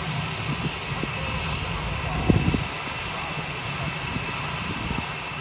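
Boeing F/A-18 Super Hornet jet engines running at taxi power: a steady jet whine over a low rumble, with a brief low thump about two seconds in.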